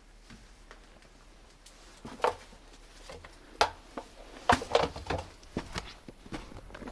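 Footsteps crunching and creaking in cold snow, uneven steps beginning about two seconds in.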